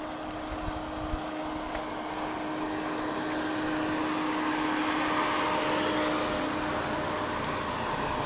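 Street traffic: cars driving past on the road alongside, their tyre and engine noise swelling to its loudest a little past the middle. Under it runs a steady hum that stops about three-quarters of the way through.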